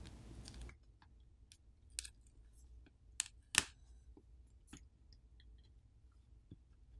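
Plastic pry tool and fingers prying a Google Pixel 7a's glued-on screen away from its frame after heating the adhesive: scattered sharp clicks and snaps, the two loudest a little past three seconds in. A steady hiss stops under a second in.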